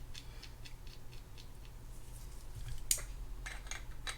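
Scattered light clicks and taps of hand tools and small metal parts being handled while working on a spinning reel, with the sharpest click a little under three seconds in.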